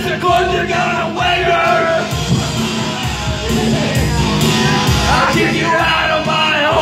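Karaoke backing music played through a PA, with a singer singing the lyrics over it into a microphone.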